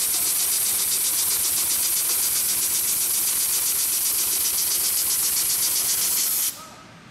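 HIGHTEX 728-30P heavy-duty long-arm triple-feed sewing machine stitching through a thick folded canvas strip at speed: a steady, hissing whir with a fast, even stitch rhythm. It stops abruptly about six and a half seconds in, as the end of the strip passes the needle.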